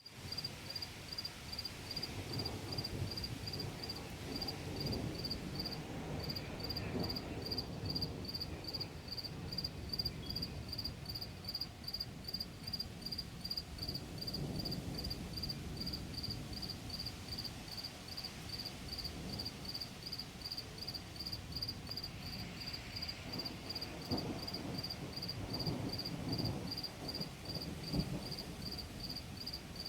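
Crickets chirping steadily, a high pulsed chirp about two to three times a second, over low rumbles that swell and fade several times, distant thunder of a mountain thunderstorm.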